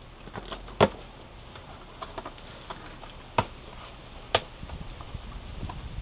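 A cardboard box being opened by hand: cardboard flaps worked open with light taps and scrapes, and three sharp cracks, one about a second in and two more a second apart past the middle.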